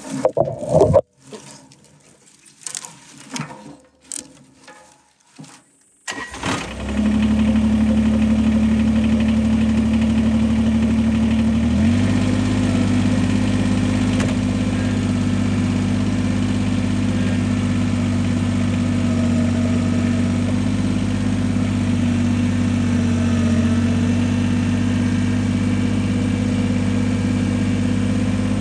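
A few clicks and knocks, then an engine starts about six seconds in and settles into a steady idle. The idle shifts slightly in pitch about twelve seconds in.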